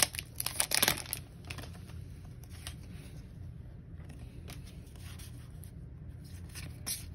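Foil wrapper of a Pokémon booster pack crinkling and tearing as the cards are pulled out, loudest in the first second. Softer rustles of the cards being handled follow.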